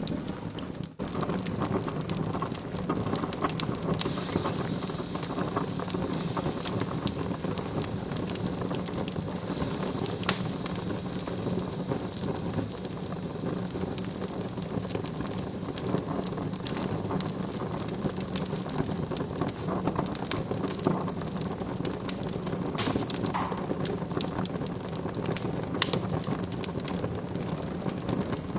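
Fire burning in a fireplace, crackling and popping steadily over a soft hiss, with a brief dip about a second in.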